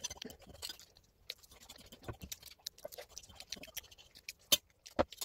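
A person chewing a mouthful of spaghetti bolognese, with a plastic fork scraping and tapping on a plate in short, irregular clicks, a few sharper ones near the end.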